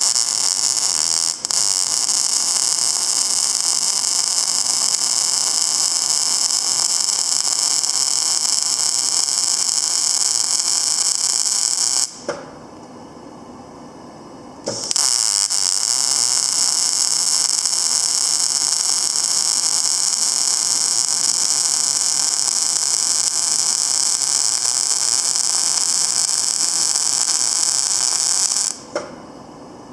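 Panasonic YD160SL7 semi-automatic wire-feed (CO2/MAG) welder's arc running with a loud, steady hiss. A first weld lasts about twelve seconds, then it stops for about three seconds, and a second weld runs until shortly before the end.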